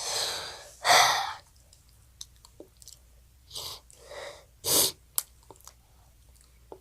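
A child's loud sniffs and nasal blasts. There is a long rush and a loud blast about a second in, then three shorter ones around four seconds. They come from a runny nose brought on by spicy ramen.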